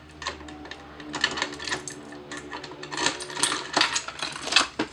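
Rapid metallic clicks and clinks of a Simplex 2099-series fire alarm pull station being opened up and handled, its metal parts knocking together, denser and louder in the second half.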